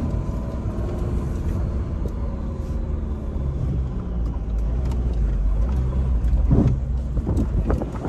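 Jeep Renegade driving over sand in four-wheel-drive lock (automatic sand mode), its engine running under load with the engine note shifting up and down. A few short knocks and clatters come near the end.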